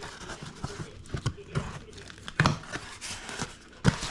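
Packaging being torn and crinkled by hand while a box is opened, with scattered clicks and two louder knocks about two and a half and four seconds in.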